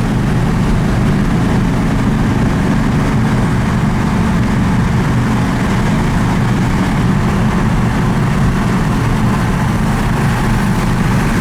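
Steady low drone of a car's engine and road noise heard inside the cabin while cruising at highway speed.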